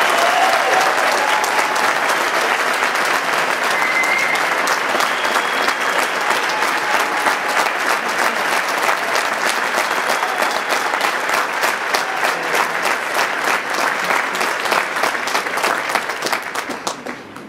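Large audience applauding steadily, thinning to scattered separate claps and dying away near the end.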